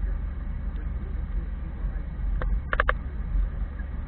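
Car driving along a road, heard from a dashcam inside the cabin: a steady low rumble of engine and tyre noise. About two and a half seconds in, a quick cluster of about four short clicks.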